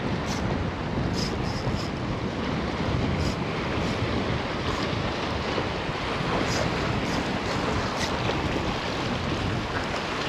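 Surf washing and wind buffeting the microphone, a steady rushing noise, with a few faint light ticks scattered through it.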